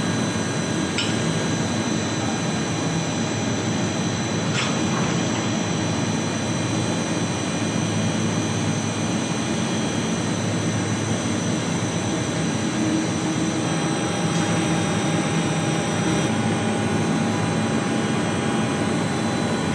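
Chip washing machine running on trial: a steady machine drone with several fixed whining tones over a dense low hum, with two brief clicks about a second and four and a half seconds in.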